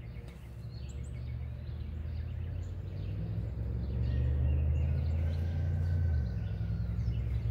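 Outdoor ambience: a steady low rumble that swells about three seconds in and drops off sharply about six seconds in, with birds chirping faintly over it.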